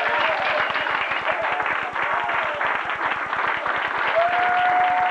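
Church congregation applauding, a dense patter of many hands clapping at once. A single held tone comes in over the clapping near the end.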